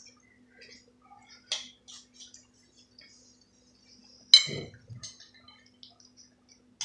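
Forks scraping and tapping on dishes during a meal: scattered small clicks, with one sharp, loud clink that rings briefly about four and a half seconds in.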